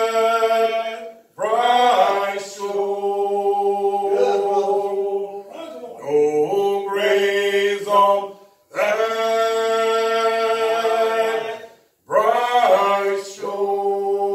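Singing: long held notes in phrases a few seconds long, each starting with a slide into the note and broken by short pauses.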